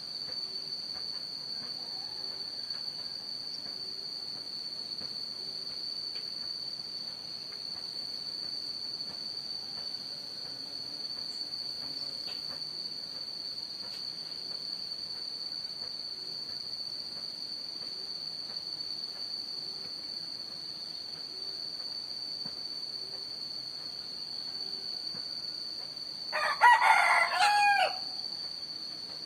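A rooster crows once near the end, a loud call of about a second and a half that ends on a falling note. Under it runs a steady high-pitched drone of insects.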